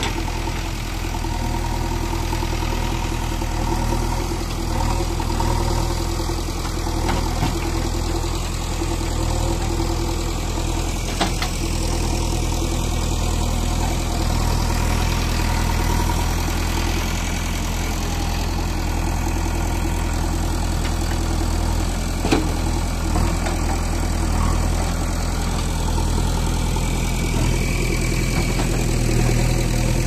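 JCB backhoe loader's diesel engine running steadily as the loader works through brush, with a couple of short sharp clanks along the way.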